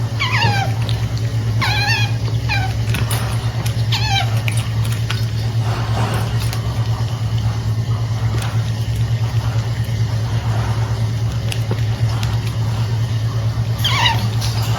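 Pet otter giving high, squeaky chirps that slide down in pitch, four in the first few seconds and one more near the end, over a steady low hum.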